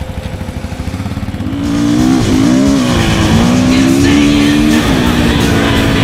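Dirt bike engine running with a low, pulsing note, then revving up louder about a second and a half in and holding the revs with small rises and dips.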